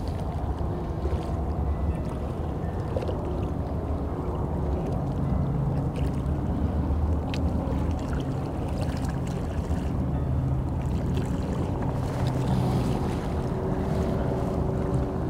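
A boat engine runs steadily on the water: a low, even rumble with a faint hum. A few light clicks sound over it.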